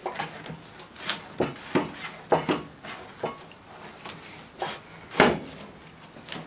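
Bread dough being kneaded by hand on a wooden board: irregular soft thumps and slaps of the dough and hands against the wood, the loudest about five seconds in.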